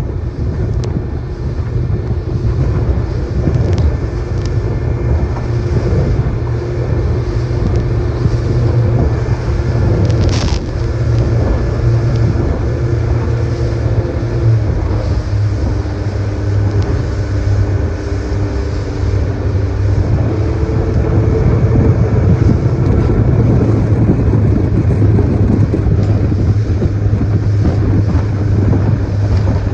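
Mercury 90 hp outboard motor running steadily after its motor mount and oil pump repair, picking up a little in pitch about two-thirds through. A single sharp click sounds about a third of the way in.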